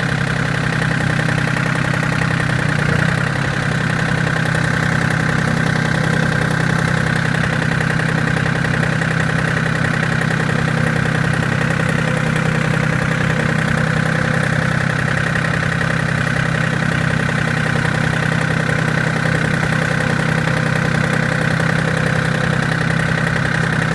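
John Deere 770 compact tractor's three-cylinder diesel engine running steadily with the transmission in high range.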